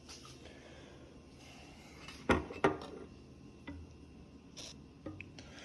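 Two sharp knocks about a third of a second apart, followed by a few lighter clicks: disassembled rifle parts being handled and set down on a hard surface.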